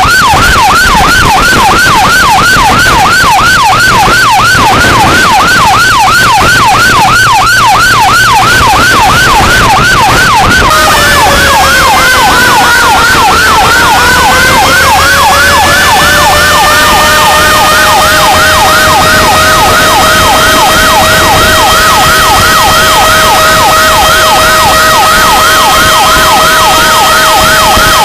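Loud fire truck sirens. A fast yelp sweeps up and down about three times a second throughout. About eleven seconds in, a second siren tone joins it, dips in pitch, then rises and holds as a steady wail.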